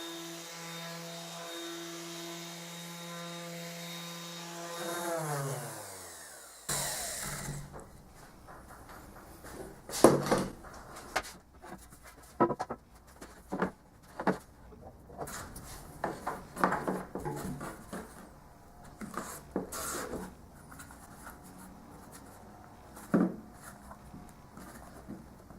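Bosch ROS20VSC random orbital sander running with a steady hum, then switched off about five seconds in, its motor winding down in falling pitch over a couple of seconds. After it stops, scattered knocks and rubbing.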